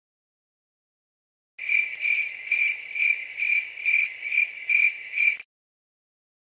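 Cricket chirping sound effect: a steady high chirp repeating about twice a second, starting about a second and a half in and cutting off abruptly a second before the end.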